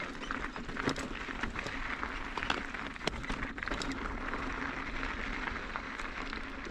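Mountain bike tyres crunching over loose gravel and rock on a slow climb: a steady gritty noise with frequent small clicks and pops of stones.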